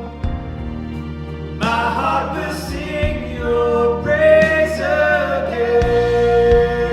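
Contemporary worship song: voices singing long held notes, without clear words, over sustained low instrumental accompaniment.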